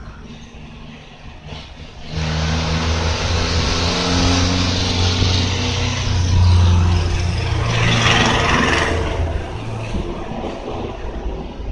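A motor vehicle passing close by: its engine hum and tyre noise come in suddenly about two seconds in, are loudest past the middle, then fade.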